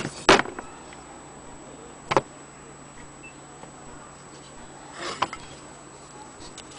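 Cast-iron sewing-machine hand-crank wheel being handled, giving a few sharp knocks and clicks: two close together at the start, one about two seconds in and a softer cluster about five seconds in.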